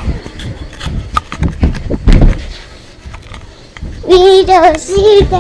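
Irregular thumps and rustling from children jumping around on a bed, with one heavy thump about two seconds in. Near the end a child's high voice sings out in long, wavering notes.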